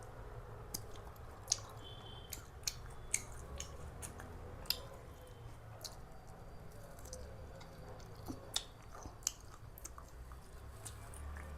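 Someone eating crisp fried bacon: quiet chewing, with several sharp, irregular clicks and clinks, like cutlery on a plate.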